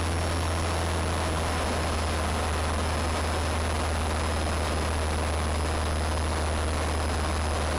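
Steady low drone of a Cessna trainer's piston engine and propeller in flight, heard inside the cabin.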